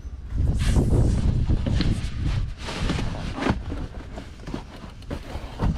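A moulded rubber Sandgrabba floor mat being pushed and pressed into a car's footwell: scraping and rustling against the carpet, with a few sharp knocks, loudest in the first three seconds.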